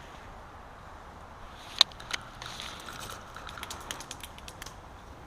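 Airsoft guns firing in scattered shots: one sharp crack a little under two seconds in, then a string of quicker, fainter snaps for about two seconds.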